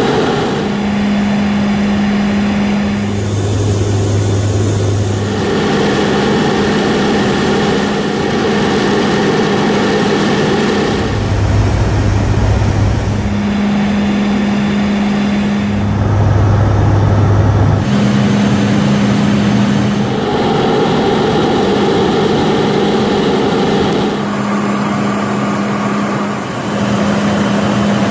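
Steady drone of a Lockheed WC-130J's four turboprop engines and six-bladed propellers in flight, a deep hum with a rushing airflow. Its tone changes abruptly every few seconds.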